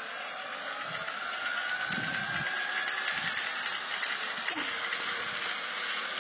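Electric drill's motor driving a bicycle through its pedal crank, a whine that climbs slowly in pitch as it speeds up over the first few seconds, over a hiss that grows louder.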